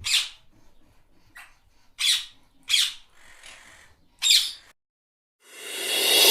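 A bird squawking: four short loud calls and one faint one, spread over about four seconds. Near the end a rising whoosh swells up.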